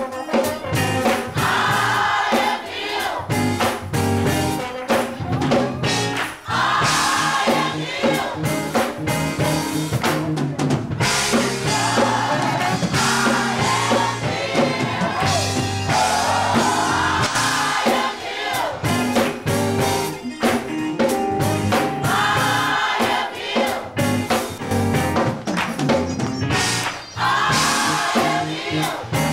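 Gospel choir singing in full voice, phrases swelling every few seconds, backed by a drum kit keeping a steady beat.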